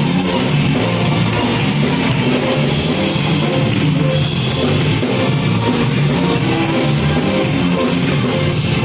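High school gospel choir singing with band accompaniment, loud and continuous.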